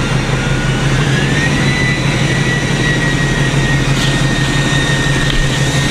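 Lifted truck's engine running while driving slowly, heard from inside the cab: a steady low drone with a thin high whine that rises between about one and two seconds in and then holds steady.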